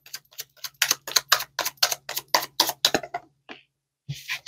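Tarot cards being shuffled by hand: a quick run of crisp card slaps, about five a second, that stops a little after three seconds, followed by a couple of short rustles of the deck.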